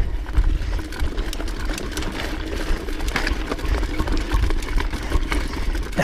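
Mountain bike climbing a rocky trail: a steady hum with many small clicks and rattles from the bike's drivetrain and tyres over rock, under a low wind rumble on the microphone.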